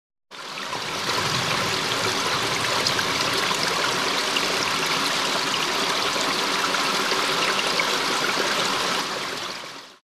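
River water running over rocks in shallows: a steady rush that fades in just after the start and fades out near the end.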